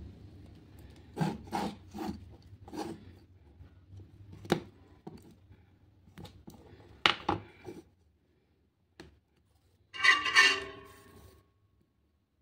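Wire stripper and hands working a wire on a lithium-ion battery pack: a series of separate clicks and scrapes, then a louder rasping scrape about ten seconds in.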